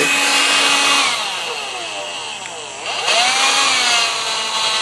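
Electrolux cordless stick vacuum's motor running at full speed with a steady whine. About a second in it winds down in pitch. Near three seconds it spins back up and settles at a lower, steady pitch: the switch from full speed to low speed.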